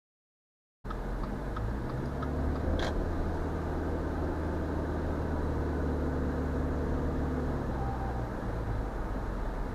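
Cabin noise of a 2019 Subaru Ascent on the move, a steady drone of engine and road, with one short, sharp knock about three seconds in. It starts after a moment of silence.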